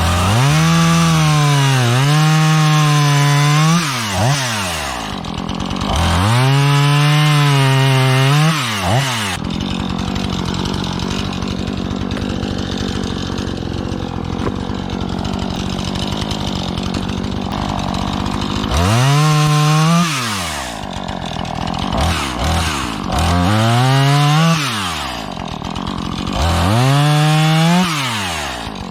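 Husqvarna 440e two-stroke chainsaw running at full throttle through wood in five cuts of a few seconds each, its pitch sagging and recovering as the chain bites. Between the cuts it drops back to a lower, steadier idle, with a long idle stretch in the middle.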